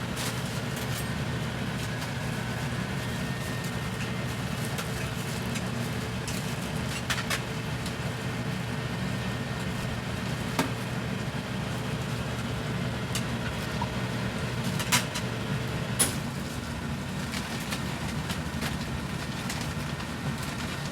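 Steady low mechanical hum, with a few sharp clicks and knocks.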